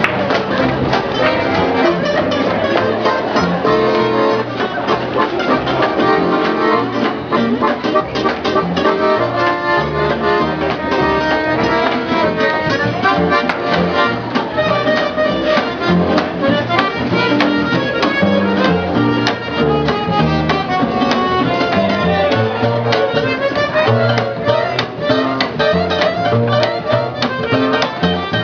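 A small acoustic swing band playing live, with rhythm strumming and a bass line under the melody.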